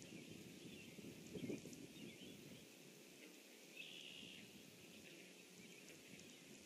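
Faint outdoor pond ambience: distant small birds chirping on and off, with a brief low rumble about a second and a half in.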